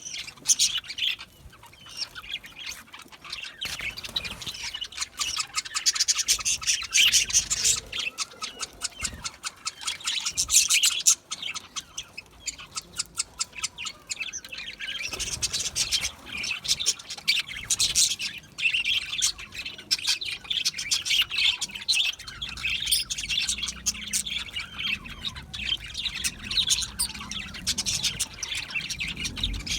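A flock of budgerigars chattering and chirping, with rapid warbling calls and occasional squawks and a short lull partway through.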